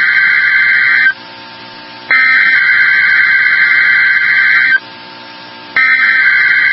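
Emergency Alert System SAME header data bursts from a NOAA Weather Radio broadcast: a harsh buzzing digital warble sent in bursts about two and a half seconds long, each about a second apart. It is the coded header that opens an alert message.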